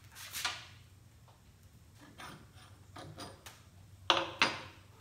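Clicks and knocks of metal hardware as a solid rubber caster wheel is worked off its axle bolt on a finish mower, ending in two sharp metal clanks about four seconds in.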